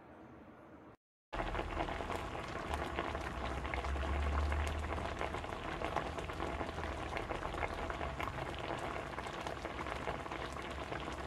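Steady, dense crackling noise full of tiny pops, starting suddenly about a second in after a brief cut to silence, with a low hum swelling briefly in the middle.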